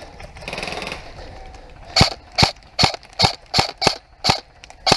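Airsoft gun firing single shots, eight sharp cracks in quick succession, about two to three a second.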